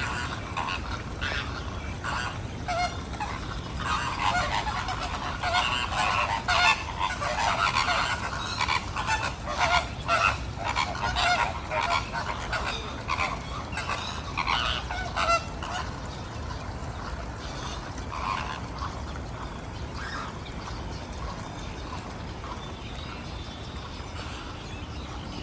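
A flock of flamingos honking: many short overlapping calls, busiest through the middle and thinning out toward the end.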